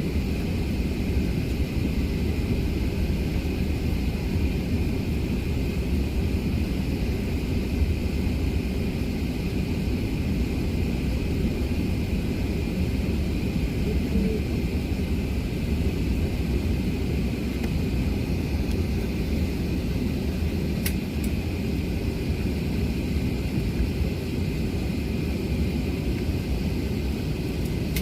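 Cabin noise inside an Airbus A380-800 taxiing in after landing: a steady low rumble with a steady high hum above it, and one brief click about three-quarters of the way through.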